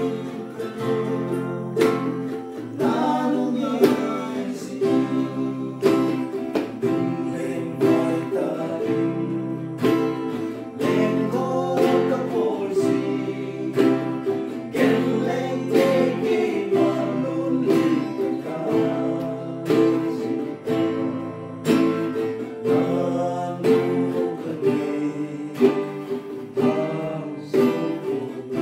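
Acoustic guitar and ukulele strumming a song together, with a hand drum keeping a steady beat and singing over the top.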